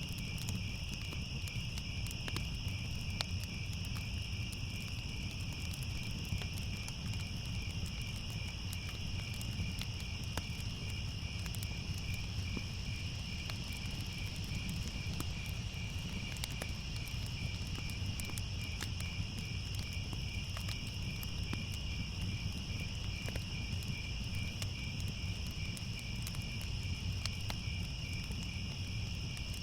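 A steady night chorus of crickets and other insects: a fast pulsing trill with a higher continuous buzz above it. Scattered small crackles and a low rumble run underneath, from a fire burning.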